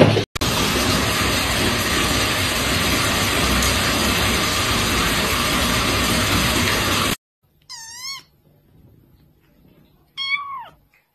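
A loud, steady rushing noise that cuts off suddenly about seven seconds in, then a small tabby kitten meowing twice: a short wavering high mew, and a second mew near the end that falls in pitch.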